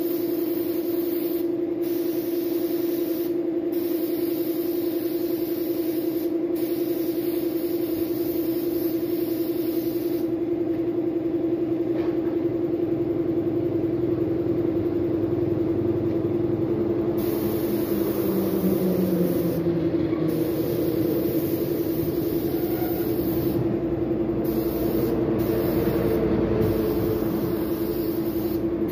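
Air compressor running with a steady hum while a gravity-feed spray gun hisses as paint is sprayed; the hiss stops briefly a few times as the trigger is let go, with a longer pause in the middle. In the second half another motor hum swells and fades.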